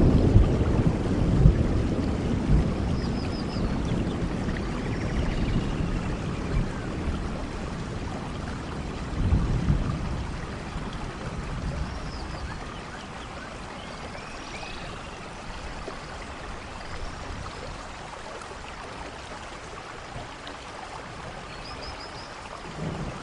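Steady rain with rolling thunder. A low thunder rumble at the start dies away over several seconds, a smaller roll comes about nine seconds in, and fresh thunder starts near the end. Faint short high chirps are heard now and then over the rain.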